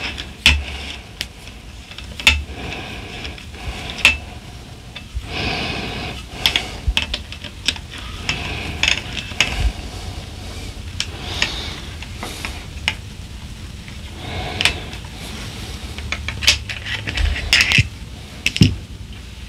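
A 5 mm hex driver unscrewing the factory regulator from an FX Impact M3 air rifle, with irregular metallic clicks and scrapes from the tool and the threaded parts, and hands handling the rifle and regulator.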